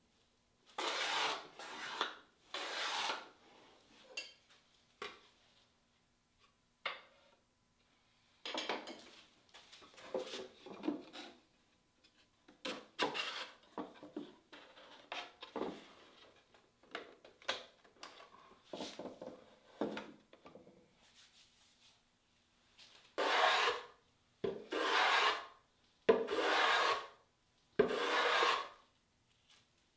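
Hand plane shaving walnut in long rasping strokes: two strokes near the start and five more about a second apart near the end, as the organizer's edges are planed flush. In between come softer wooden scrapes and knocks as walnut dividers are fitted into their dadoes.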